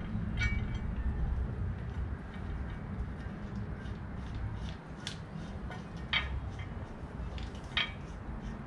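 Metal hand tools clinking several times as they are handled, over a steady low hum.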